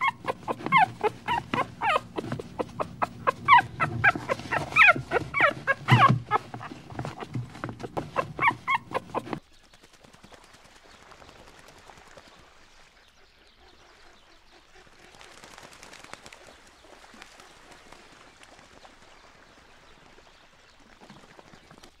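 A dog yipping and whimpering in rapid short high-pitched calls, several a second, for about nine seconds. It cuts off suddenly, and a cat purring faintly follows.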